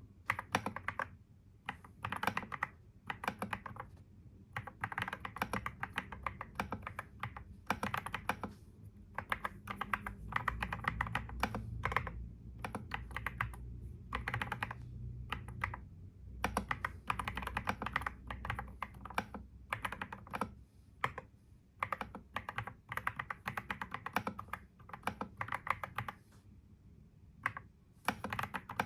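Computer keyboard being typed on in quick runs of keystrokes broken by short pauses. A low rumble sits underneath for several seconds in the middle.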